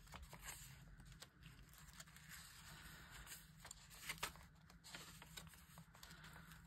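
Faint rustling and light taps of paper and card being handled as a small paper tag is tried into a slot in a handmade journal, with a slightly sharper tap about four seconds in.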